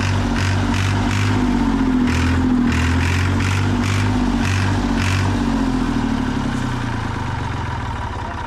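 Massey Ferguson 200C Turf tractor's diesel engine turning over and firing on sprayed ether, with an uneven pulsing beat. About six seconds in it slows and fades as it dies, running on the ether alone because no fuel is reaching the injection pump.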